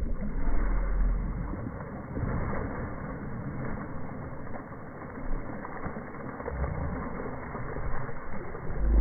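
Wind buffeting the microphone in uneven low rumbles over a steady rushing noise.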